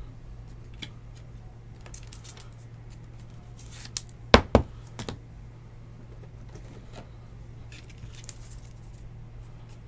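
Rigid plastic trading-card top loaders being handled, with light rustling and faint ticks and two sharp plastic clacks close together about four and a half seconds in. A steady low hum runs underneath.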